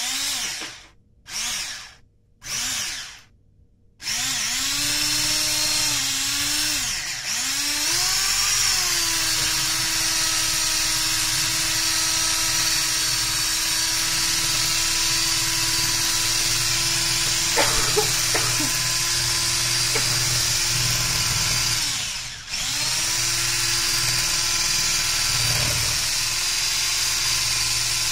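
Electric hand mixer's motor whining in a few short pulses, then running steadily as its twin beaters whisk eggs and sugar in a glass bowl. The pitch sags and recovers twice, and a few light clicks come about two-thirds of the way through.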